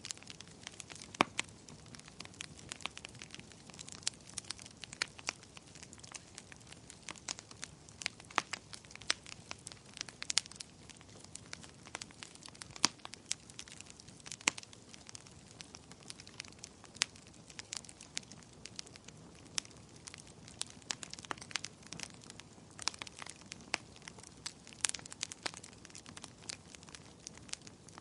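Wood fire crackling in a fireplace: a steady, irregular run of sharp pops and snaps over a low hiss.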